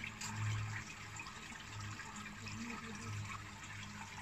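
Water trickling steadily through a hydroponic tower, over a low hum that swells and fades every half second or so.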